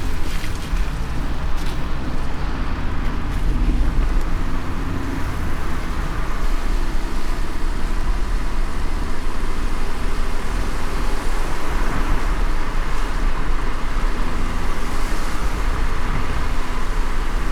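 A car driving in the rain: a steady low rumble from the car and road, with an even hiss of rain and wet tyres over it.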